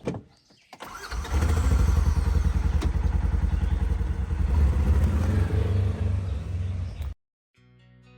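A vehicle engine starts about a second in and runs with a loud, steady, low rumble, cut off abruptly near the end. Acoustic guitar music begins right after.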